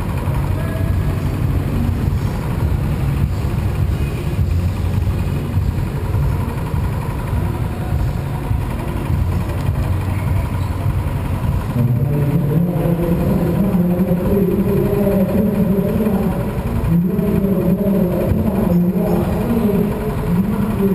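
Go-kart engine heard on board while racing: the engine note is low and steady at first, then climbs sharply about twelve seconds in as it accelerates, dipping briefly twice near the end.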